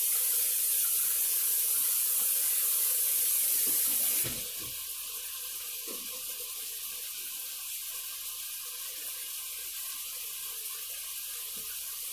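Kitchen sink tap running while hands are washed under it. About four seconds in, the loud rush of water drops to a quieter, steady hiss.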